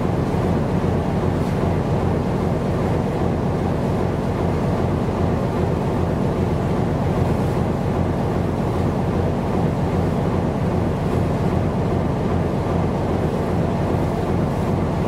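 Steady low rumble of wind on the microphone over the sea, with no breaks or changes.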